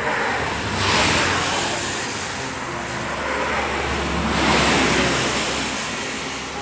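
Two vehicles passing close by, one after the other: a loud rushing noise swells and fades about a second in, then again a few seconds later with a deeper rumble, covering faint voices.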